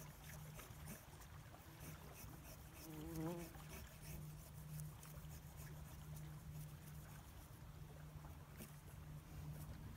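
Faint, quick scraping strokes of an axe blade shaving thin curls off a stick of wood to make a feather stick, over a steady low hum.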